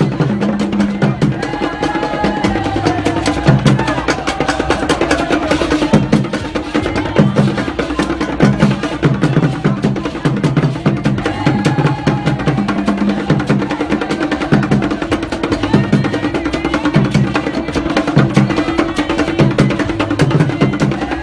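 Akom drumming, the traditional Akan music for the dance of priests: drums beat a repeating low pattern under fast, dense percussion clicks.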